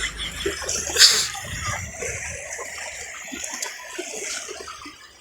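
Seawater splashing and washing in the shallows. There is a louder splash about a second in, then a hiss that fades away.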